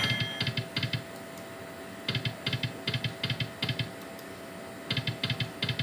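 Video slot machine ticking rapidly as its reels spin, about seven ticks a second, in three short runs under a second each, over a faint steady hum.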